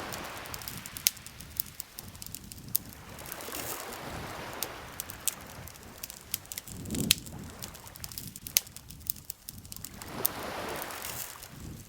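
Campfire crackling, with frequent sharp pops and snaps scattered throughout, over a soft rushing noise that swells and fades every few seconds.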